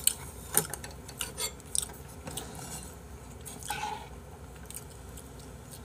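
A metal spoon clicking and scraping against a bowl of rice porridge, with several sharp clinks in the first two seconds, then softer eating sounds.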